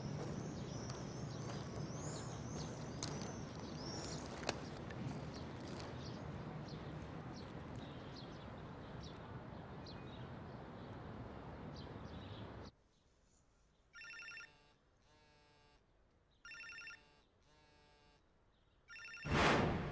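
Quiet outdoor background with birds chirping and a faint steady hum. About two-thirds of the way through, it cuts out, and a mobile phone rings twice, each ring a short electronic burst. A whoosh rises near the end.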